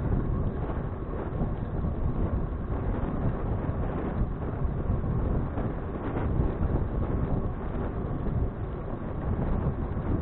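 Wind buffeting the microphone of an action camera on a moving bicycle: a steady, low, fluttering rumble of wind and road noise.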